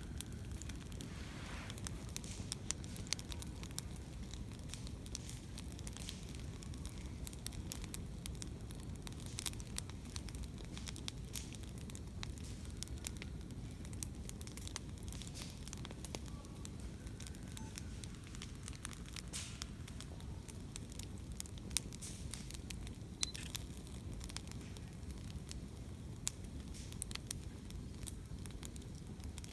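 Wood bonfire crackling, with frequent irregular pops and snaps over a steady low rumble.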